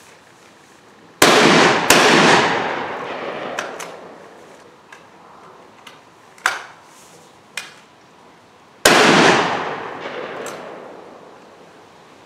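Stoeger Coach Gun, a 12-gauge side-by-side double-barrel shotgun, firing two shots about a second in, under a second apart, each report trailing off slowly; metallic clicks follow as the gun is broken open and reloaded, then a third shot about nine seconds in. The test is of new firing pins, with the right barrel still giving light primer strikes.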